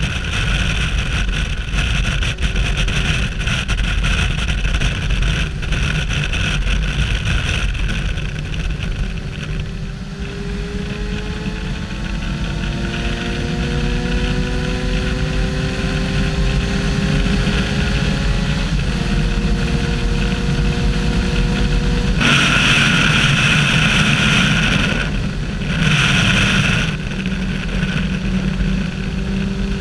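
Kawasaki Versys 1000's inline-four engine running hard at highway speed under rushing wind. For several seconds it pulls up steadily in pitch through a gear, drops sharply at an upshift, then holds steady. A louder rushing noise lasts a few seconds near the end.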